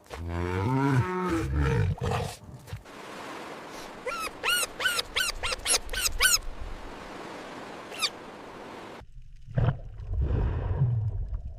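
Animal calls: a deep call falling in pitch, then a quick run of about eight high calls and one more high call, followed by low rumbling.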